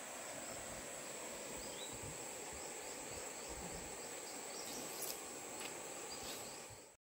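Tropical outdoor ambience: insects holding a steady high-pitched drone, with faint short bird chirps over it, until it cuts off suddenly near the end.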